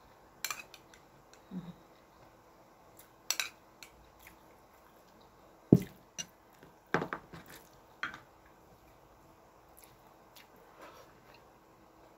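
Metal fork and spoon clinking and scraping against plates and a bowl during a meal: a scattering of sharp clinks, the loudest about halfway through, with soft chewing sounds between them.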